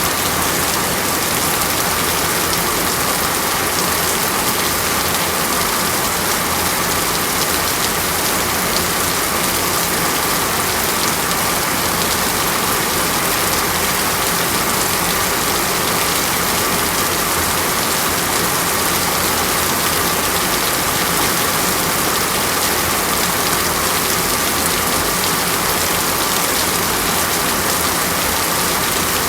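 Water falling steadily as an even, unbroken hiss, with a faint steady tone underneath.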